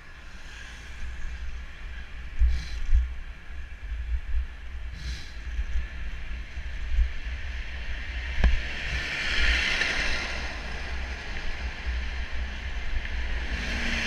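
Wind rumbling and buffeting on a cyclist's camera microphone over road noise, with a vehicle's tyre hiss swelling and fading about two-thirds of the way through. Near the end a garbage truck's engine draws up close alongside.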